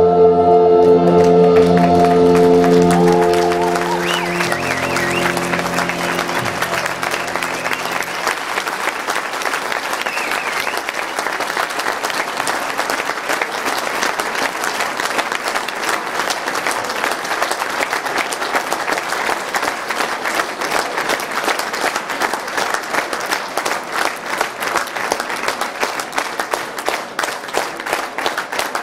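A live band's closing chord is held for the first few seconds and dies away by about eight seconds in, as the audience breaks into long, steady applause.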